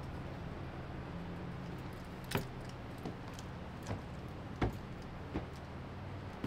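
Several light, sharp clicks and knocks at uneven intervals over a steady low rumble.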